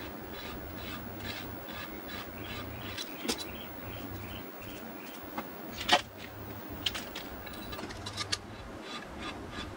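Hand-turned Neway valve seat cutter scraping round a valve seat in a Toyota 3S-GE cylinder head, a rhythmic rasp of about three strokes a second: the 30 and 60 degree cuts that narrow and move the seat's contact band. Partway through the cutter is lifted off and put back with sharp metal clacks, the loudest about six seconds in, and the scraping goes on.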